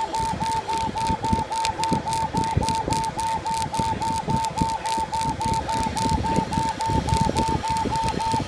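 Laser engraver at work: the head sweeps rapidly back and forth, its drive whining in a steady tone that dips at each reversal several times a second, with ticking and a light rattle from the moving gantry.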